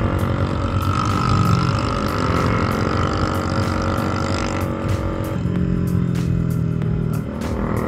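Bajaj Dominar 400's single-cylinder engine running under way, with wind noise on the microphone. The engine note changes about five seconds in and again shortly before the end.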